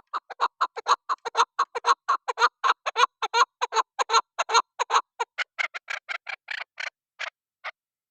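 Chukar partridge calling: a rapid series of short, sharp clucking notes, about five a second, that slows and stops near the end.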